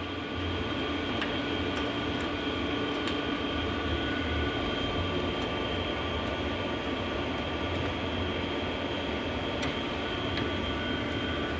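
Steady fan hum from running machinery, holding several even tones throughout, with a few faint light clicks of small metal parts being handled.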